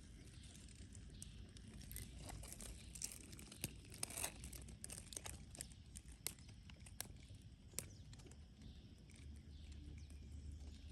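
Faint rustling with scattered small sharp clicks and crinkles over a low hum.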